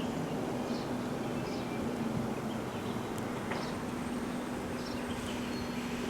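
Roadside traffic ambience: a steady rumble with a constant low hum running under it, and scattered short high chirps on top.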